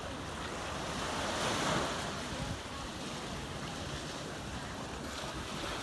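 Ocean surf washing onto a sandy beach as a steady rush, with one wave swelling loudest about a second and a half in.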